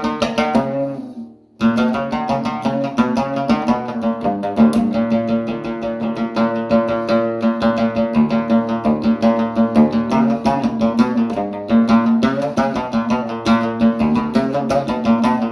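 Background music played on a plucked string instrument, with rapid picked notes over a steady held note. About a second in, the music fades out into a short gap, then starts again abruptly and carries on.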